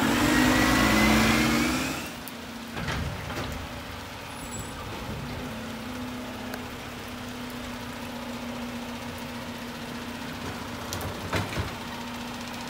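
Garbage truck diesel engine pulling away with a rising whine for about the first two seconds, then a second garbage truck idling steadily. A few short sharp knocks come about three seconds in and again near the end.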